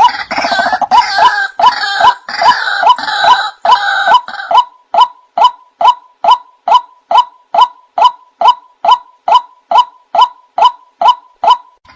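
Male white-breasted waterhen (burung wak-wak) calling loudly: a fast jumble of harsh, croaking notes for the first four seconds or so, then settling into a steady run of single sharp notes, about two and a half a second.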